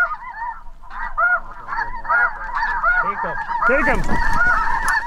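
Snow geese calling: many overlapping high, arched honks from a flock, one after another. Near the end a louder, lower swooping call and a rise of noise come in.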